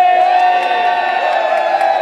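A group of voices cheering together in one long, held whoop, several pitches sustained steadily after an upward swoop.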